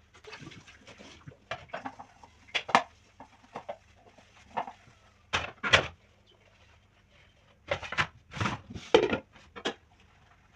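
Dishes and cutlery clinking and knocking against each other as they are handled during hand washing, in irregular clusters of sharp clinks.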